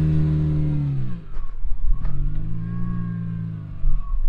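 Lifted Subaru Crosstrek's engine revving up, holding and easing off twice under load as it crawls over an off-road obstacle, with a few sharp knocks in between.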